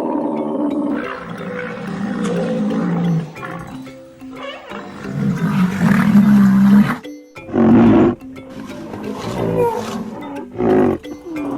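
Rhinoceros calling: a run of low, pitched calls, with short louder calls about eight and about eleven seconds in.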